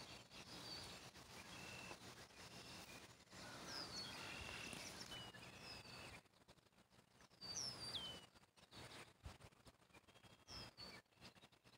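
Faint outdoor ambience with scattered songbird chirps and short whistles, one call sliding down in pitch, over a soft steady hiss.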